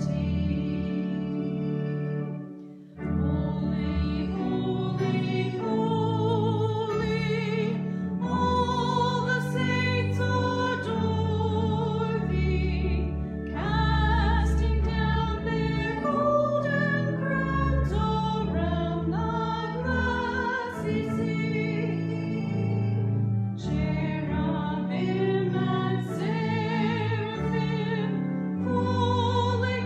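A hymn being sung: a singing voice with vibrato over sustained accompaniment chords, the music dipping briefly about three seconds in.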